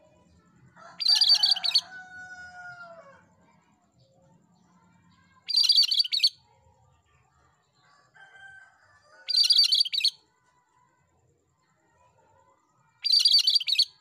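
A cucak kerinci, a Sumatran bulbul, singing. It gives four short, loud, rapid chattering phrases about four seconds apart, and the first is followed by a softer, lower whistle that falls in pitch.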